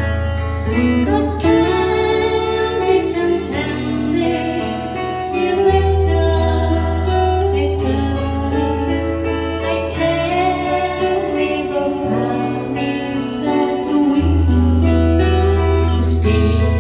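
Band music with guitar playing a melody over long held bass notes. The bass changes about six seconds in and again near the end.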